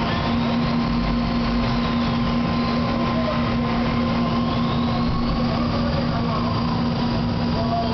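Takamaz XY 1000 CNC lathe running: a steady machine hum, with a faint high whine that rises and falls, then rises again near the middle and holds.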